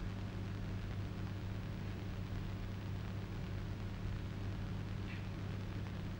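Steady hiss and low hum of an old film soundtrack, with no clear sound of the type being set.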